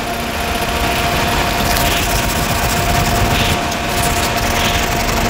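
A steady machine hum with a constant tone runs throughout. Over it comes the soft rasping of gel coat being sanded by hand with 150-grit sandpaper, in repeated strokes.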